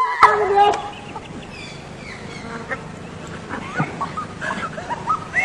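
A series of short animal calls: a loud cluster in the first second, then scattered quieter calls.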